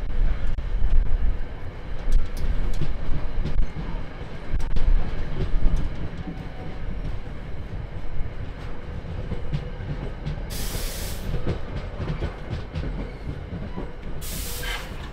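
NJ Transit passenger coaches of an electric-hauled train rolling past on the rails as it pulls out, a steady low rumble that slowly fades as the cars move away. Two short bursts of hiss break in, one about two-thirds of the way through and one near the end.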